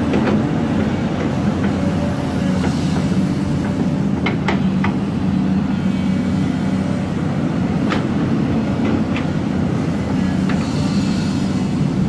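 Tracked hydraulic excavator running steadily at a working engine speed, with a few sharp knocks about four and a half, eight and nine seconds in as the bucket and arm move.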